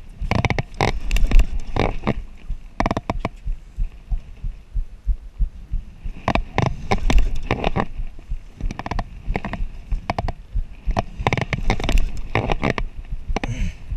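Penn Fathom 25 narrow lever-drag reel being cranked hard in short spells while fighting a bluefin tuna: clusters of quick clicks and knocks from the reel and rod, over low thumps of handling heard up close.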